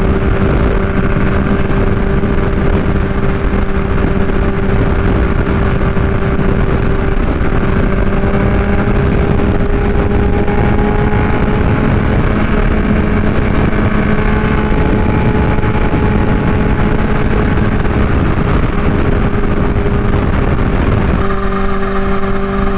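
Kawasaki Ninja H2's supercharged inline-four, fitted with a new Vandemon exhaust, running at a steady engine speed while cruising, with heavy wind rush across the microphone. The bike is being ridden to heat-cycle the new headers.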